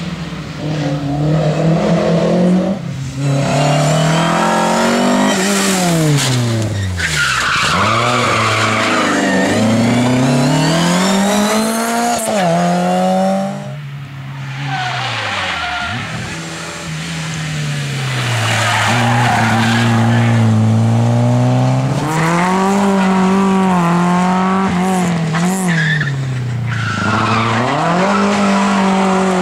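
Rally car engines revving hard, rising and falling through gear changes and braking, with tyre squeal as the cars slide through tarmac corners. A green BMW E30 passes in the first half, there is a short lull about halfway, then a yellow Mk1 Volkswagen Golf comes through.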